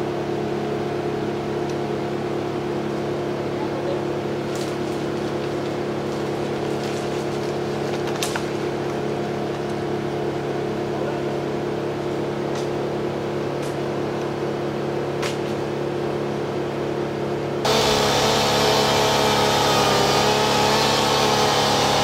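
A steady engine drone with a few faint clicks. About 18 seconds in it switches abruptly to a louder chainsaw cutting into a maple trunk.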